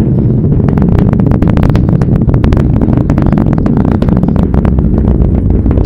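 Space Shuttle Atlantis launch rumble heard from miles away: a loud, deep rumble broken by rapid, irregular sharp crackles from the rocket exhaust.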